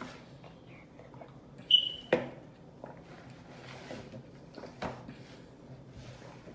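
Close-up eating of a seafood boil: a short high squeak about two seconds in, right away followed by a sharp crack, then a few lighter clicks and wet mouth smacks.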